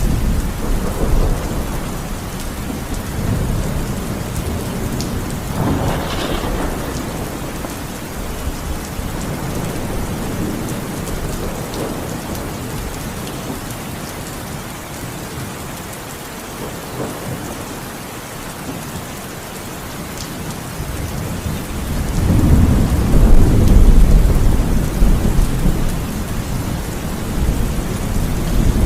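Steady heavy rain with rolling thunder: low rumbles in the first few seconds, and a louder roll of thunder swelling up about two-thirds of the way through.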